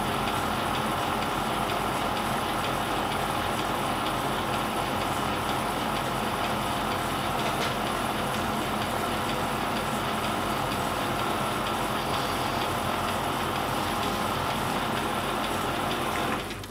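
Metal lathe running steadily while a tool cuts a shallow groove, about 8 to 10 thou deep, in the spinning work. The lathe stops near the end.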